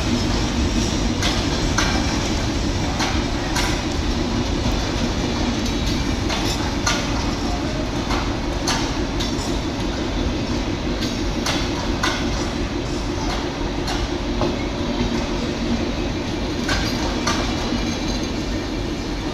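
Bangladesh Railway intercity passenger coaches rolling past on the track: a steady rumble of wheels on rail, broken by irregular sharp clicks and knocks as the wheels cross rail joints.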